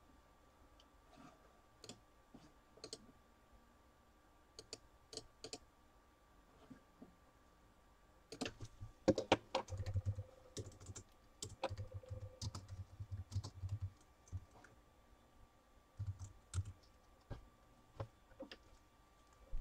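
Typing on a computer keyboard, with clicks in irregular spurts. It is sparse at first, busiest from about halfway through, with low knocks mixed in.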